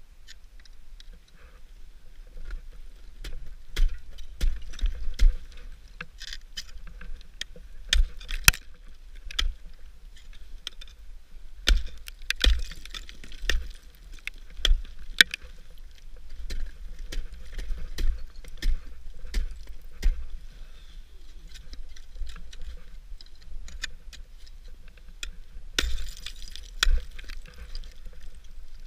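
Ice axes being swung into brittle waterfall ice: irregular sharp thunks and cracks with deep thuds, dozens of strikes. There are two spells of hissing, about twelve seconds in and near the end.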